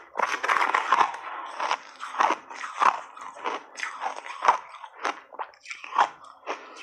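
Shaved ice being chewed close to the microphone: an irregular run of crisp, loud crunches, two or three a second.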